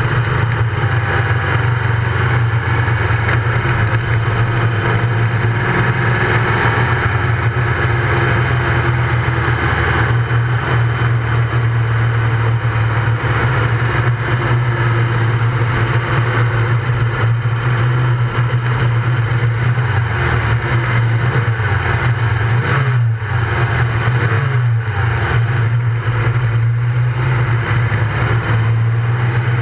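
Racing buggy's engine running hard at a fairly steady pitch, heard from a camera mounted on the car. About two-thirds of the way through, the sound dips and wavers a few times as the throttle is eased for a corner.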